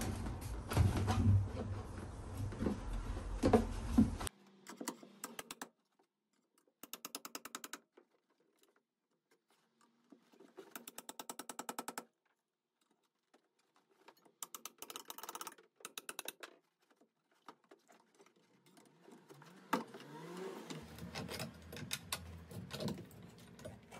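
Hand-tool work on worn screws at a marine diesel engine: about four seconds of handling and scraping noise, then several short runs of rapid, even clicking a few seconds apart.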